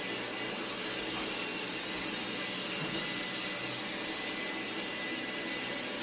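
Dreame D9 robot vacuum running: the steady rush of its suction fan with a thin, high, steady whine.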